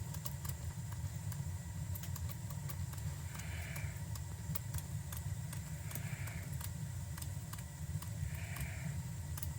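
A Utica gas boiler's burner firing with a steady low rumble after its newly replaced gas valve has opened the main burner. Faint scattered ticks and three short, soft hissing puffs sound over it.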